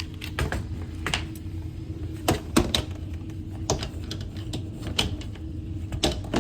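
Air handler blower with a Broad Ocean X13 fan motor running with a steady low hum; this motor has been diagnosed as bad, with low airflow and a rumble. Over it come about ten irregular sharp clicks and knocks, spread unevenly, as hard equipment is handled.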